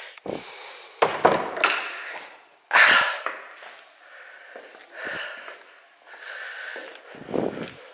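A person's breathing and sniffs close to the microphone, in short irregular breaths, with a few sharp knocks from handling of the camera.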